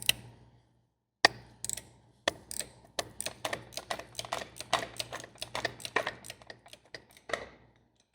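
Ratchet wrench clicking in quick, irregular runs on a 19 mm bolt, with a few separate sharp clicks in the first second.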